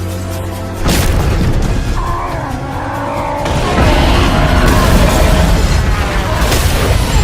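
Cartoon fight soundtrack: dramatic background music under heavy booming impact effects, with a sudden loud hit about a second in and the mix growing louder about halfway through.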